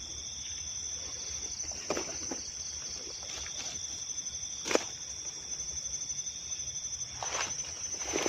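Insects chirring, a steady high-pitched shrill at two pitches, the lower one dropping out for a while and returning. A few short clicks or knocks come through it, the sharpest about five seconds in.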